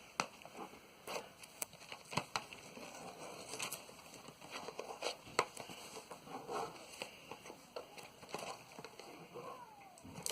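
Plastic shrink wrap on a trading-card box crinkling and crackling as fingers pick and scratch at it, with scattered small clicks and taps.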